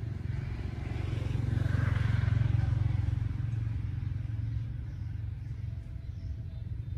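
A passing motor engine: a low, steady hum that swells to its loudest about two seconds in, then slowly fades.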